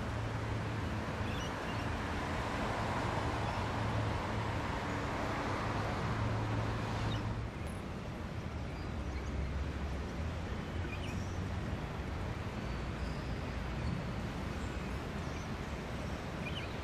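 Outdoor city ambience: a steady low hum and hiss that eases about seven seconds in, with a few faint bird chirps.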